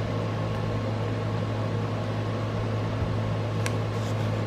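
Steady low room hum with an even hiss, from a running fan-type appliance; a faint click about three and a half seconds in.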